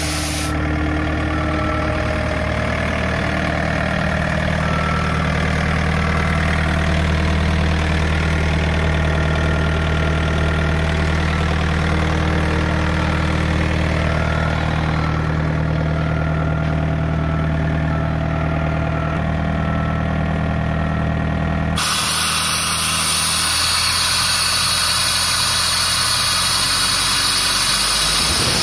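Diesel engine of an Airman portable screw air compressor running steadily at idle after start-up. About three-quarters of the way through, a loud steady hiss joins in and the engine sound becomes fainter.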